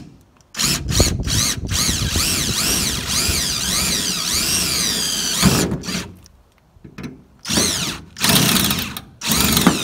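Cordless drill with an 11/64 bit drilling out an aluminium rivet in a jon boat hull. The motor whine wavers up and down in pitch in one long run of about five seconds, then stops briefly and comes back in several shorter bursts near the end.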